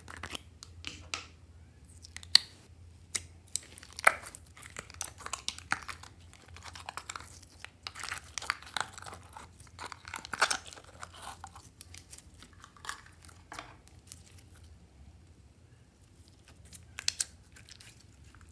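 Clear jelly slime with plastic gems being squeezed and pushed by hand out of its plastic tub: irregular sticky squelches, pops and crackles, busiest in the middle and thinning out toward the end.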